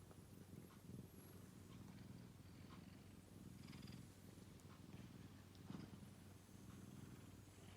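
Ginger tabby cat purring steadily and faintly, with a few faint ticks on top.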